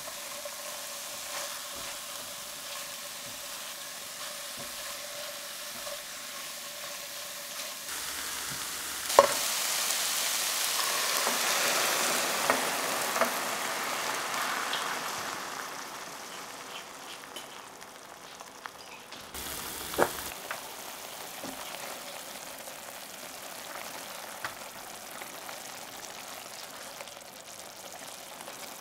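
Chorizo, mushrooms and shallot sizzling in a stainless steel sauté pan as a silicone spatula stirs. About nine seconds in, after a sharp knock, dry white wine hits the hot pan and hisses loudly, dying down over several seconds; afterwards the wine simmers with a quieter sizzle and a few spatula scrapes.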